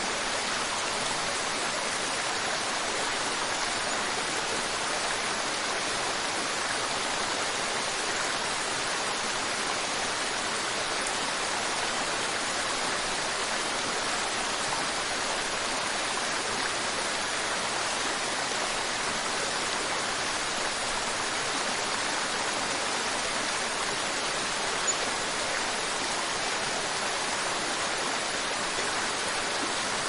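Wide, low waterfall rushing over a rock ledge into a river: a steady, even rush of water, bright and hissy with little deep rumble.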